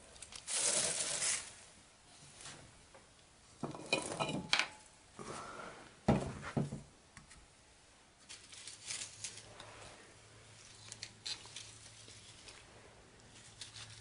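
Bunches of dried flowers rustling and crackling as their brittle stems are handled on a wooden table, with a few light knocks and clicks. The loudest rustle comes near the start.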